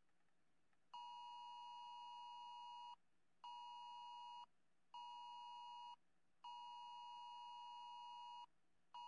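Emergency alert attention tone, the EAS sound of a phone's wireless emergency alert: a shrill two-pitched electronic beep in a repeating long–short–short rhythm, sounding a tornado warning.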